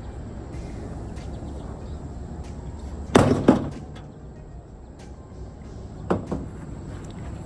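A microwave oven being smashed: a loud crashing blow about three seconds in, with a second hit right after it, and a lighter knock about six seconds in.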